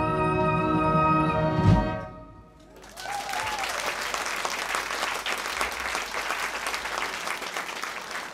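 Big band holding its final chord, cut off by a low hit about two seconds in. After a short pause, the audience breaks into steady applause.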